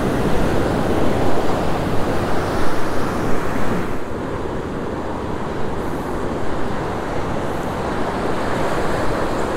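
Ocean surf breaking and washing up the beach, with wind buffeting the microphone; the noise eases a little about four seconds in.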